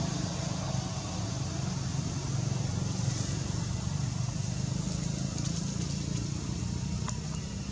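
Steady low drone of a distant engine, with an even hiss above it and one faint click near the end.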